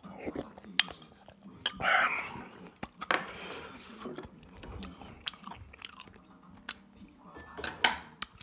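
Eating sounds: chewing, with a spoon clicking against an earthenware soup pot many times. The sharpest click comes near the end.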